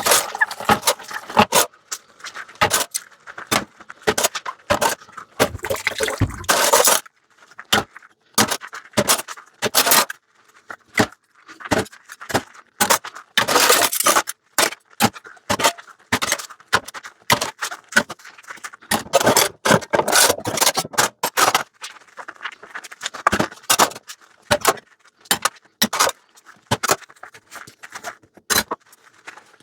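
Dishes and cutlery clinking, clattering and scraping as they are washed by hand in a sink, in quick irregular knocks with a few longer rushing stretches.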